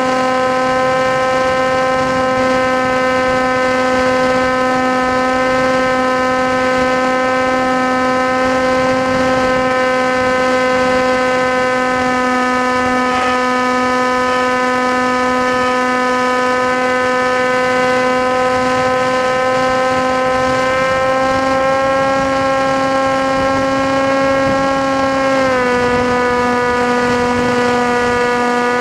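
Motor of an FPV model aircraft running at steady throttle, a loud whine of even tones. Its pitch creeps up slightly past two-thirds of the way through, then drops back a few seconds before the end.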